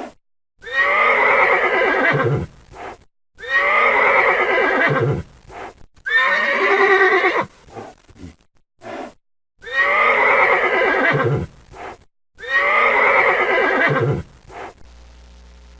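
Horse whinnying: the same call five times, each about two seconds long, with a brief low sound after each.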